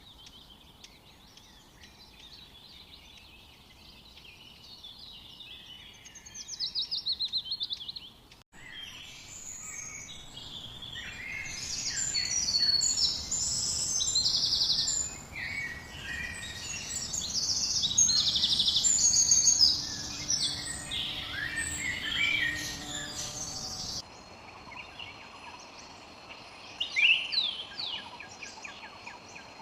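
Wild birds singing and calling: a rapid trill about six seconds in, then a dense chorus of overlapping chirps and trills from several birds, loudest in the middle. The sound changes abruptly twice, as if separate recordings follow one another.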